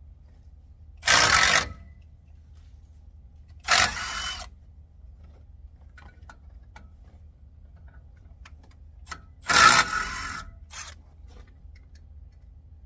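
Power wrench on a 17 mm socket running the brake caliper bolts in three short bursts, about a second in, near four seconds and near ten seconds.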